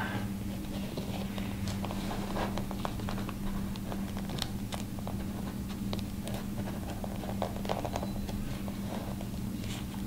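Metal zipper slider being fitted onto a zipper's tape by hand: faint scattered clicks and scrapes of the slider against the teeth, over a steady low hum.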